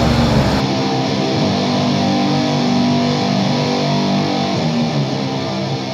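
Background music that gets quieter near the end. In the first half second a truck engine runs, then cuts off suddenly and only the music is left.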